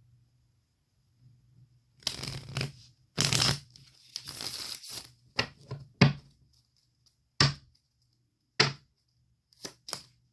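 Tarot cards being handled: about three seconds of rustling, sliding card noise, then a string of short, sharp slaps as single cards are put down on the table.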